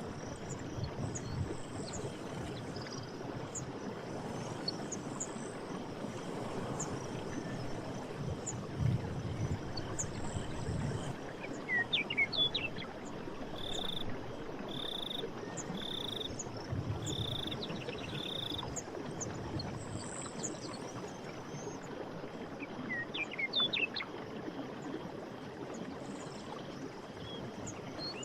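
Running stream water with birds calling over it. There are quick rising chirps about twelve seconds in and again near the end, and between them one bird repeats a short whistled note five times. Faint high chirps and a few low swells of the water run throughout.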